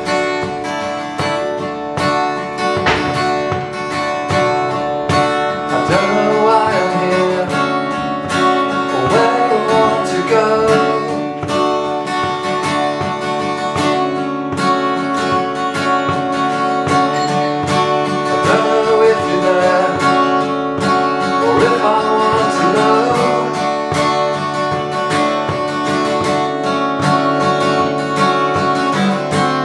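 Acoustic guitar strummed steadily as a song accompaniment, with a man's voice singing over it in several phrases.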